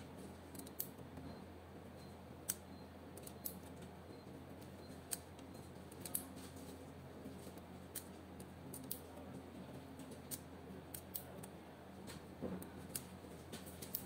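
Fiber optic patch cord connector being pushed into and pulled out of its adapter over and over, giving sharp plastic clicks at an irregular pace of roughly one a second, over a steady low hum. This is a repeated mating-cycle durability test of the connector.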